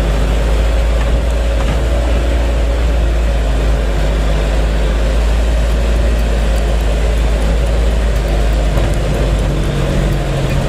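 Isuzu Elf microbus on the move, heard from inside the cabin: a steady, loud, low drone of the diesel engine and road noise.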